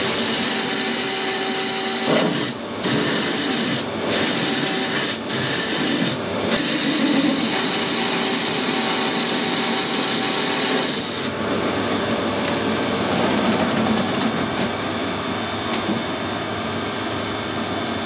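Metal lathe cutting a steel bearing ring: a steady hiss from the cut over the hum of the running spindle, broken off briefly a few times. About eleven seconds in, the cutting hiss stops and only the steady running sound of the machine remains.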